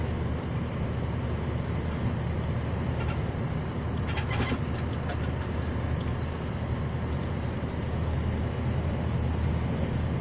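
A heavy truck's diesel engine and road noise heard from inside the cab as it cruises under a full load of about 64 tons, a steady low drone. A few light clicks come about four seconds in.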